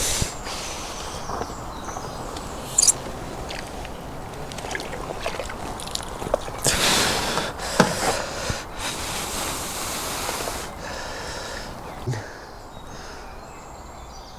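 Outdoor handling noise: rustling with a few sharp clicks, and two longer hissing bursts around the middle that grow quieter toward the end.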